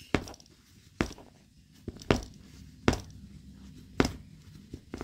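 Sharp clicks, about one a second, as the tension knob of a Roughneck bow saw is turned round by hand to tighten the blade.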